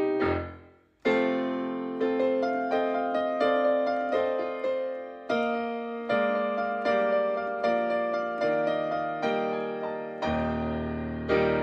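Piano music: a slow piece of single struck notes, each fading. The music breaks off for a moment about a second in, then resumes, and a deep bass note comes in near the end.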